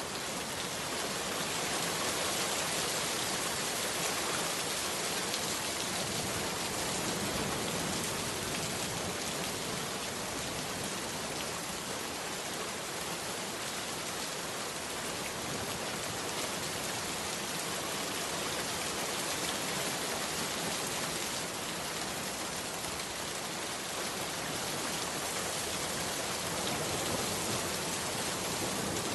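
Steady rainfall: a dense, even hiss of rain falling on a surface.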